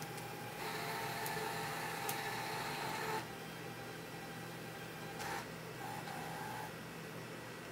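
Small electric drive motors of a homemade wheeled robot whirring with a steady whine for about two and a half seconds as the robot turns, then a fainter short whir near the end.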